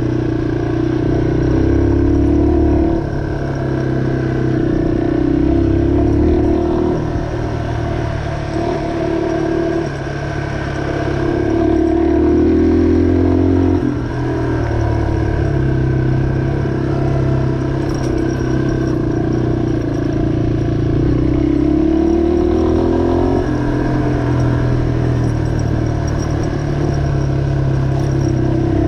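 2003 Yamaha XT225's air-cooled single-cylinder four-stroke engine running under way, its pitch climbing as it revs and dropping back sharply several times.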